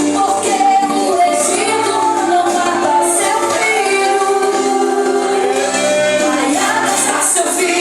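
Female singing of a Portuguese worship song over a steady instrumental accompaniment with held bass notes.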